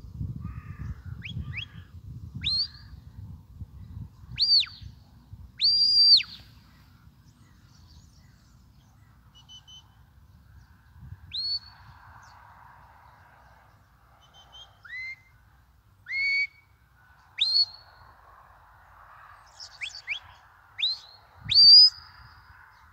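Shepherd's whistle commands to a working sheepdog: about a dozen sharp whistled notes, each rising quickly to a high held pitch and then breaking off, some brief and some longer, spaced irregularly, with the loudest near the end.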